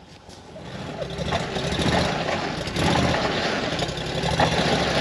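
A motor vehicle's engine running, growing louder over the first couple of seconds and then holding steady.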